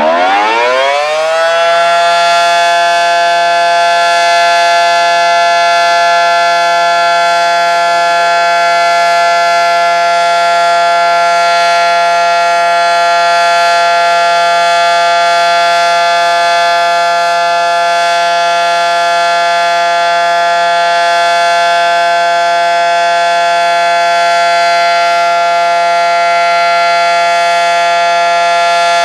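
Federal Signal SD-10 dual-tone electromechanical outdoor warning siren on a routine monthly test. It finishes winding up, rising in pitch over the first two seconds, then holds a loud steady alert tone.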